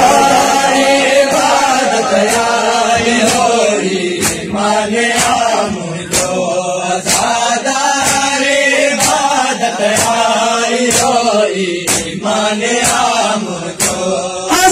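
A man recites a noha, a mourning lament, through a microphone and loudspeaker in a slow, melodic chant. A sharp beat sounds about once a second under the voice.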